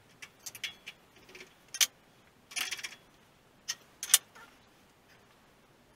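Sharp metallic clicks and clinks of tools and tooling being handled while an end mill is fitted into a milling machine's spindle, with a brief rattle about two and a half seconds in. The mill is not running.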